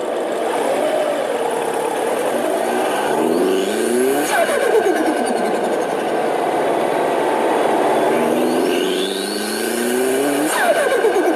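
Turbocharged car engine pulling hard twice, its note and a high turbo whistle rising together. Each pull ends with a sudden drop at lift-off, about four seconds in and near the end, and after the second comes a rapid fluttering chatter from the turbo.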